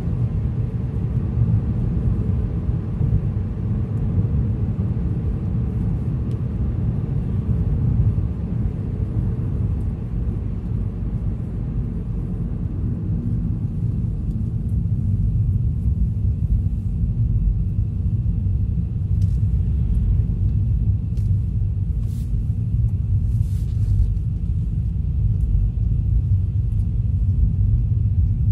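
Car driving: a steady low rumble of engine and tyre noise on the road, with a few faint ticks about twenty seconds in.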